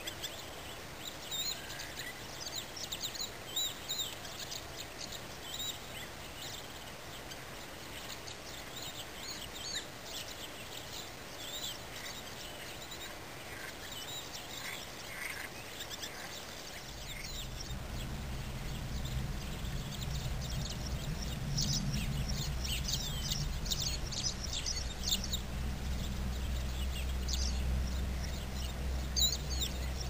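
Marsh ambience with many birds chirping and calling in short high notes. A low steady hum joins about halfway through and stays to the end.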